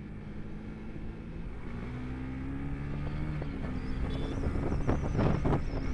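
Motorcycle engine pulling under way, its pitch slowly climbing and then stepping down about three and a half seconds in, as at a gear change; the overall level grows louder toward the end.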